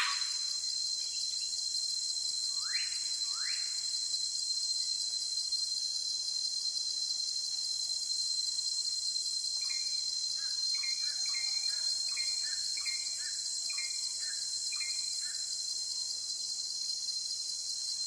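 Steady high-pitched insect drone with a thin steady whine in it. Birds call over it: a few downward-sliding whistles in the first four seconds, then a run of short chirping notes between about ten and fifteen seconds in.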